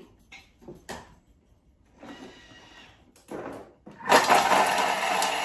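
A few faint clicks, then about four seconds in a Thermomix starts suddenly at high speed, its blade chopping fresh parsley and garlic cloves with a loud, steady whirr.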